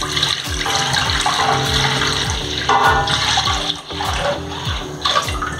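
Milk poured in a continuous splashing stream from a steel vessel into an aluminium kadhai, over background music with a steady drum beat.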